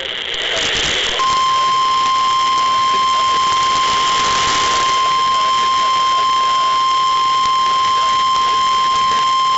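NOAA Weather Radio 1050 Hz warning alarm tone: a single loud, steady beep that starts about a second in and holds unbroken over radio static. It signals that a warning broadcast is about to follow.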